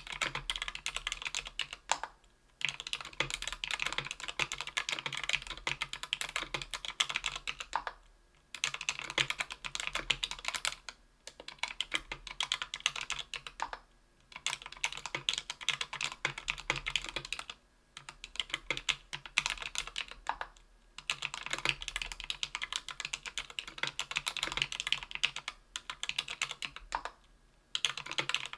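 Steady typing on a Tofu 60% aluminium mechanical keyboard with aluminium plate and lubed CannonKeys Lilac Tactile 65g switches (lubed with Krytox 205g0). The key presses come in fast runs, broken by short pauses every few seconds.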